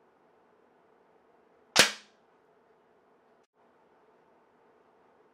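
A single sharp shot from a Benjamin Marauder PCP air pistol, about two seconds in, over a faint steady hum.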